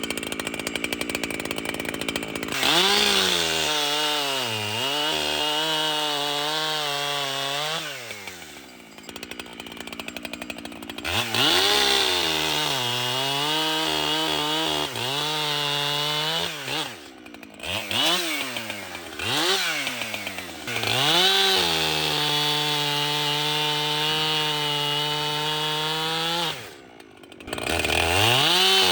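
Echo two-stroke chainsaw run at full throttle through wood in several cuts, the engine's pitch sagging under load and recovering. Between cuts it briefly drops back toward idle before revving up again.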